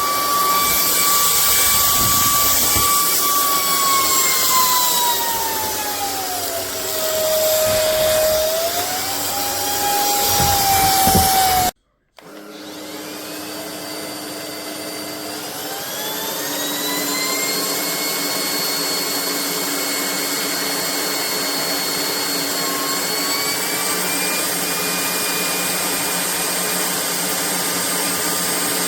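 Cordless stick vacuum (Vistefly V15s Max) running with a high motor whine. Its pitch sags and comes back up, then the sound cuts out abruptly just before the middle. It starts again, winding up in pitch over a few seconds to a steady high whine, with one small step higher near the end.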